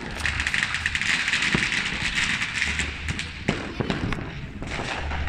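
New Year's firecrackers and fireworks: a rapid crackling for about three seconds, then several separate sharp bangs.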